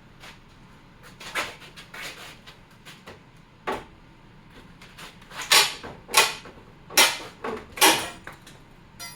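Hand tools working on a nailed wooden box: a series of sharp wooden knocks and scrapes. Smaller ones come first, then four loud strokes about 0.7 s apart in the second half.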